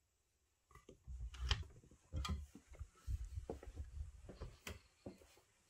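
A door being opened and someone walking through with a handheld phone: dull thuds of steps and handling, with a few sharp clicks of the door latch and handle, starting about a second in.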